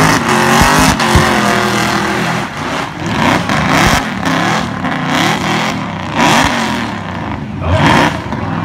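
Cammed Holden Commodore doing a burnout, its engine revving hard with the pitch rising and falling in repeated surges about once a second, over the steady noise of the spinning rear tyres.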